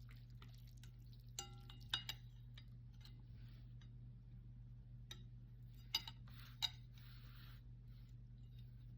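Utensils clinking against a bowl during eating: a short ringing clink about a second and a half in and a few sharp clicks near two and six seconds, over a steady low hum.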